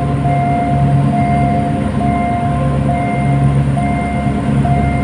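A level-crossing warning signal sounds a repeating on-off tone about once a second, over the steady low rumble of an approaching Alsthom diesel-electric locomotive.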